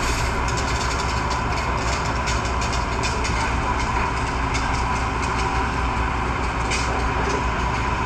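Fire truck engine running steadily: an even, low rumble with a faint steady high tone over it.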